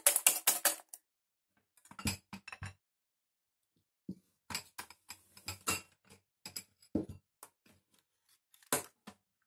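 Wire whisk beating eggs in a glass bowl: a fast run of clicks that stops within the first second. Then scattered light clicks and knocks of tableware and packets being handled.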